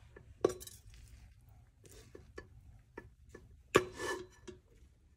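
A metal spoon stirring cooked rice and peas in a rice cooker's pot, clinking against the pot several times with a soft scrape between strikes. The loudest knock comes about three-quarters of the way through.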